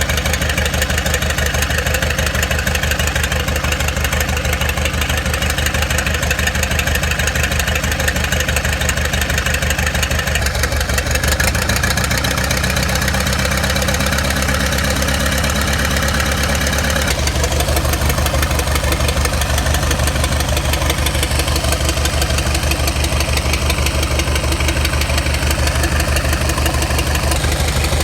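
Excavator's diesel engine running steadily with a low, even drone. Its tone shifts about ten seconds in and again a little past halfway.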